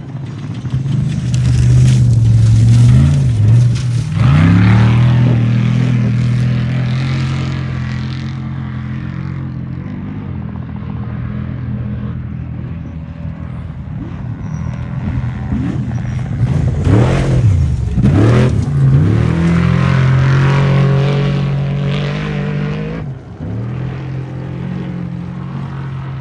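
Off-road race trucks' engines revving hard as they pass, once around three to five seconds in and again around seventeen to twenty seconds in, the engine pitch dipping and climbing with each pass. A steady low drone runs underneath throughout.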